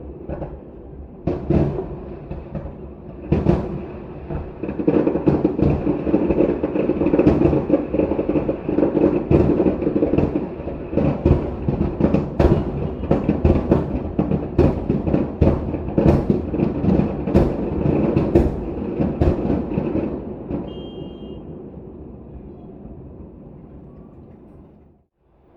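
Fireworks show: a rapid barrage of shell bursts and booms over a continuous rumble, thickening into a dense volley, then fading away and stopping near the end.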